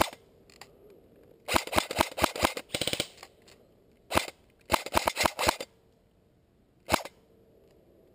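Airsoft AK-74S rifle firing at close range: two rapid runs of sharp cracks and a few single shots, the last about seven seconds in.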